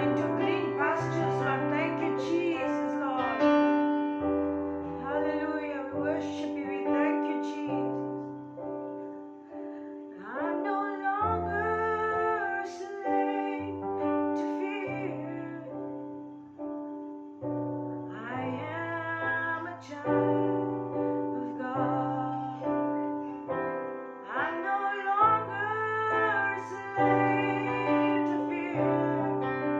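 Worship song: a woman singing over held piano or keyboard chords and bass notes.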